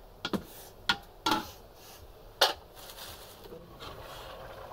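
Metal cooking utensils clanking against a metal pot of fish curry on a clay stove: the lid is lifted off and a spatula knocks against the pot while stirring. About five sharp clanks fall in the first two and a half seconds, then it goes quieter.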